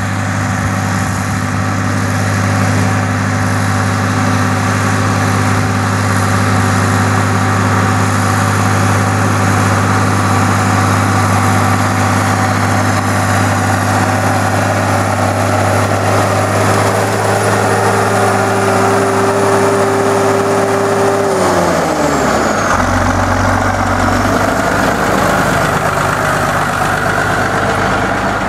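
Fiat 110-90 turbo tractor's six-cylinder turbo diesel running steadily under load while pulling a Krone Turbo 4000 loader wagon through silage, with a steady whine over the engine note. About three-quarters of the way through, the whine and engine pitch fall away as the revs drop, and the engine settles to a lower note.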